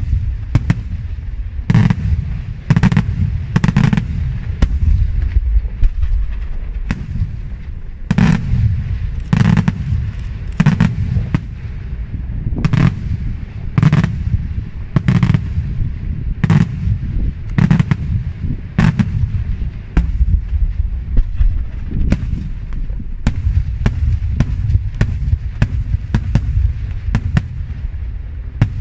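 Daytime aerial fireworks display going off in a steady barrage: sharp loud bangs, one or two a second, over a continuous low rumble of further reports.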